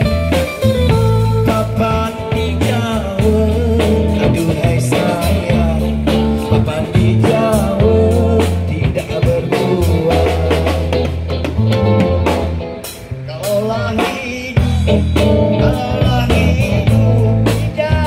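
A band playing music with guitar, bass and drum kit, carrying a melody that bends and wavers in pitch, with a short dip in level about two-thirds of the way through.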